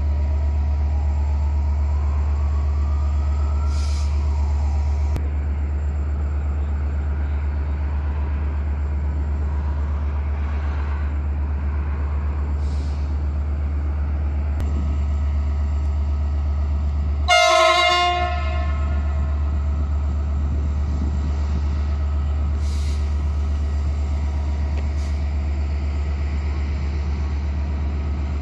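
Diesel locomotive horn sounding one blast of about a second, over a steady low rumble of idling diesel engines, as a GM-class diesel locomotive of Romanian railways prepares to pull a passenger train out of the station.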